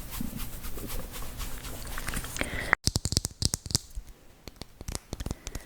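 Close-miked ASMR trigger sounds: a rapid crackle of small clicks and taps that cuts off abruptly about three seconds in. Sparser, sharper taps follow the cut.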